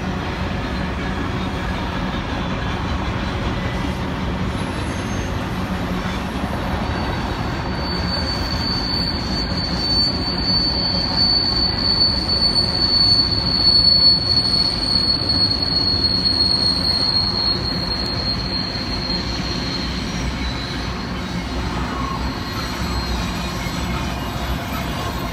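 Freight train's intermodal container cars rolling past with a steady rumble. A high, thin wheel squeal sets in about seven seconds in, peaks a little after halfway, and dies away a few seconds later.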